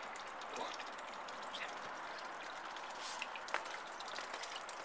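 Steady trickle of water from a small garden pond, with many small high ticks over a soft hiss.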